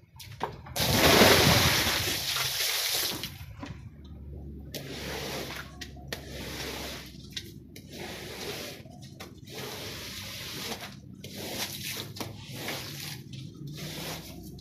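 A loud rush of water lasting about three seconds, then repeated wet swishing strokes, about one a second, as a squeegee and a stiff bristle brush are pushed across a soaked rug.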